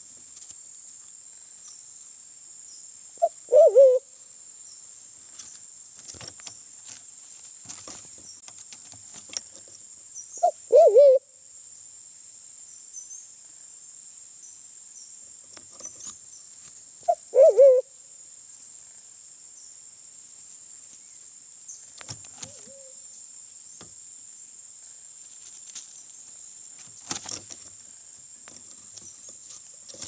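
Sulawesi black pigeon (Turacoena manadensis) calling: three loud, low hooting calls about seven seconds apart, then a much fainter one. A steady high hiss runs underneath throughout.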